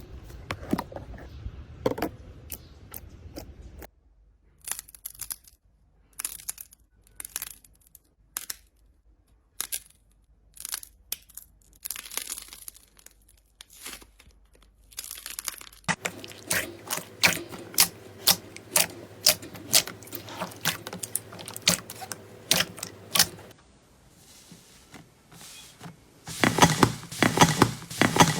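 Slime being pressed, poked and stretched by hand, giving sticky clicks, pops and crackles in quick irregular series. The loudest stretch comes near the end.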